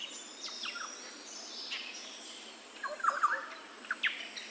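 Several birds chirping and calling in short, scattered notes, some sweeping downward in pitch, busiest about three seconds in.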